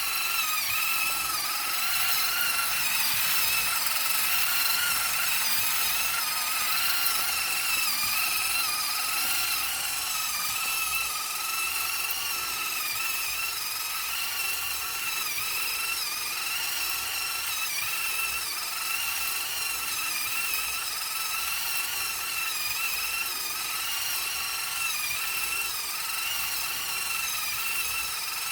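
Small electric motor and gearing of an RC concrete mixer truck turning its loaded drum to unload floor dry: a steady high whine that wavers slightly in pitch, with a hiss above it.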